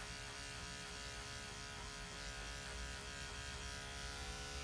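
Corded electric dog-grooming clippers with a #10 blade running steadily with a buzzing hum as they shave matted fur from a dog's throat.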